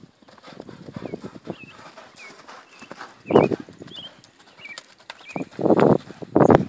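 Hoofbeats of a horse loping on the dirt footing of a round pen, with a few louder bursts about halfway through and near the end.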